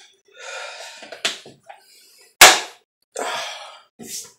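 Short, breathy exhaling hisses from a person with a couple of light clicks, and one loud, sharp smack about two and a half seconds in.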